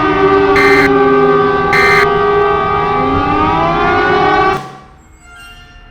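Civil defense sirens wailing together at different pitches, some holding a steady tone while others glide up and down, with two short bursts of noise about a second apart in the first two seconds. The sirens cut off suddenly about four and a half seconds in, leaving only faint tones.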